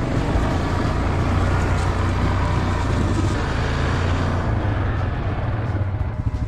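ATV engine running steadily while riding over gravel, with the tyres crunching on the stones. The gravel noise eases about four and a half seconds in as the machine rolls off onto dirt.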